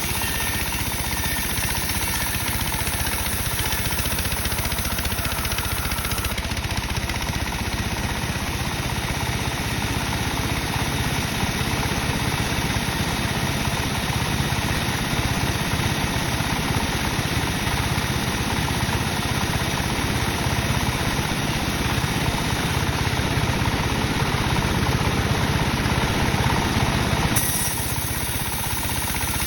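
Sawmill saw running and cutting dry teak timber, a steady mechanical din whose sound changes about six seconds in and again near the end.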